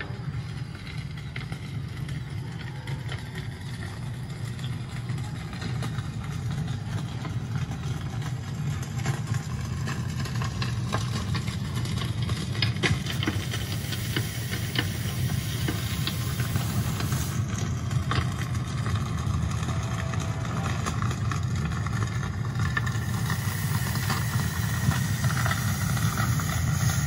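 Steady low drone of a running motor, engine-like, growing slowly louder. Near the end a hissing noise joins it.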